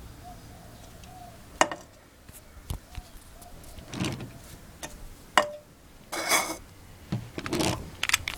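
Airsoft Hi-Capa gas blowback pistol firing a string of shots at irregular intervals: sharp cracks, the loudest at about one and a half seconds and again about two thirds of the way in, with longer clattering noises among them.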